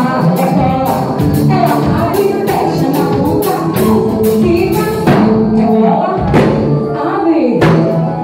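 A woman singing lead into a microphone over a live band of accordion, keyboard, drum kit and electric guitars, with a steady drum beat.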